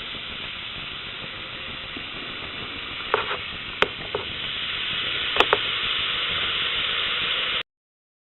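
Baking soda and vinegar fizzing in a model volcano, a steady sizzling hiss with a few sharp pops around the middle. It cuts off suddenly near the end.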